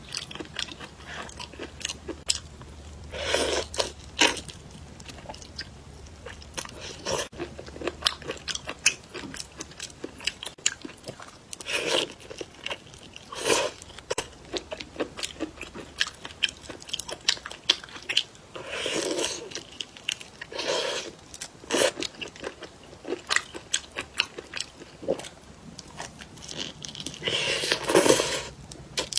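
Close-up eating sounds: a person biting and chewing shrimp, with many small wet clicks and several louder crunching bursts.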